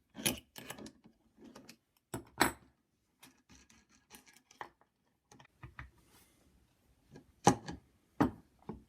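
Hand tools and metal parts clinking and knocking while the Mini Lopper's centre bolt assembly is undone: a series of irregular clicks and knocks, sharpest about two and a half seconds in and again around seven and a half seconds.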